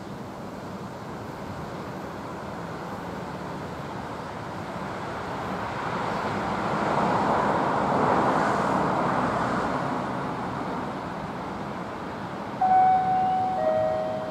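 Rushing noise of a passing vehicle that swells to a peak midway and fades. Near the end come two loud steady tones, a higher one and then a lower one, each about a second long.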